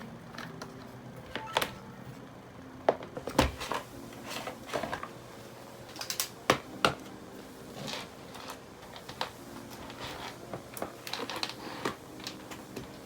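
Irregular light clicks, taps and knocks of small objects being handled and set down, with a few sharper knocks.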